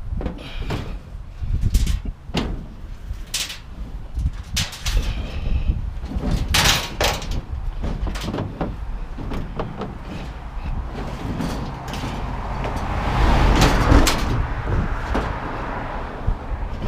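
Scrap metal, including a clothes dryer, being shifted and arranged in a vehicle's load bed: a string of clanks, knocks and scrapes, with a longer, louder scraping rush about three-quarters of the way through. Wind rumbles on the microphone throughout.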